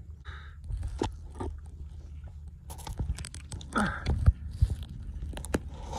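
A man's strained grunts and heavy breaths as he gropes underwater in a crab burrow, over many sharp clicks and a steady low rumble. A short falling groan comes about four seconds in.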